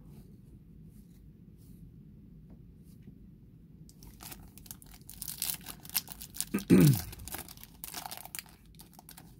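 Foil wrapper of a trading card pack being torn open and crinkled, starting about four seconds in, with one short, loud falling squeak partway through.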